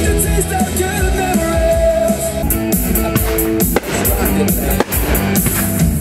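Background music: a song with guitar and drum kit, the drums striking sharply in the second half.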